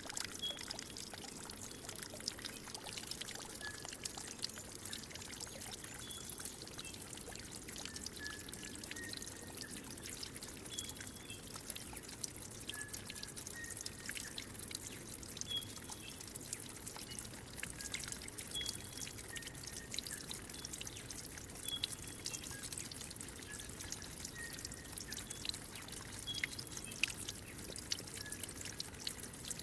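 Water trickling and splashing steadily, like a small stream or runnel, with many little splashes. Short, high single notes come through it every second or two.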